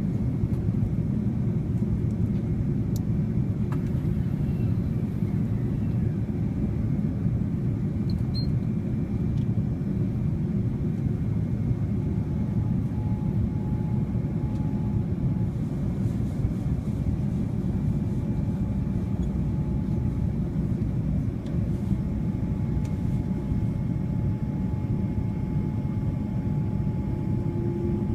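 Boeing 787-9 cabin noise in flight: a steady deep rumble of engines and airflow heard from inside the cabin, with a thin steady whine, and a second, lower tone joining about halfway through.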